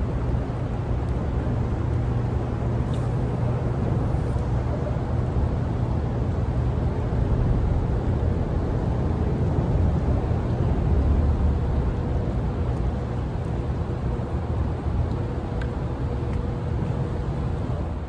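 Steady low rumble of strong current and wind on the water beside the dam, with a faint steady hum in the second half.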